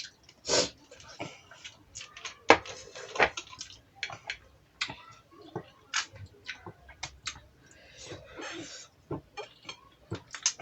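Eating noises: irregular clicks and taps of utensils against a plate or bowl, about two a second.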